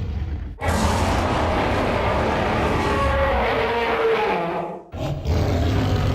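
Tyrannosaurus rex sound effect: a low rumbling growl, then a long loud roar that falls in pitch over about four seconds, then another low growl near the end.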